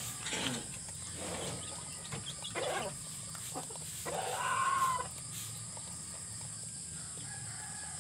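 Shamo chickens clucking softly as they feed, with one longer call about four seconds in and light taps of pecking at feed on the ground.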